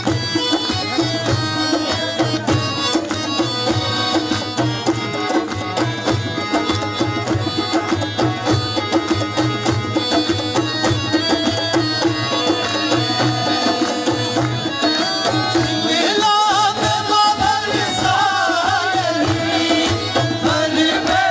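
Live folk dance music: drums beating a steady, dense rhythm under a melody line. About sixteen seconds in, a singing voice with a wavering pitch joins in.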